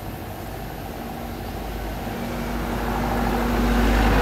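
A motor vehicle's engine humming with a low rumble, growing steadily louder as it draws closer.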